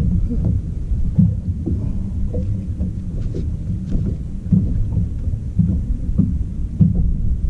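Wind buffeting the microphone of a bow-mounted camera on a boat: a steady low rumble with irregular thumps.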